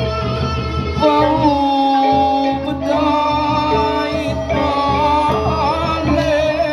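Traditional Sasak lawas singing: a man sings long, wavering held notes into a microphone, starting about a second in, accompanied by a bamboo suling flute playing a quick stepping melody, all coming through a PA speaker.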